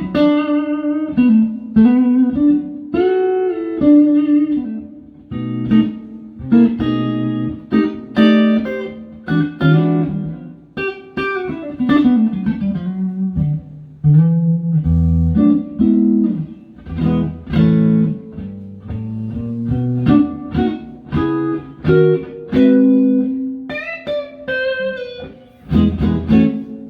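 Electric guitar: a Stratocaster with Fatpups Crossroads pickups playing picked single-note lines and chords, with string bends here and there.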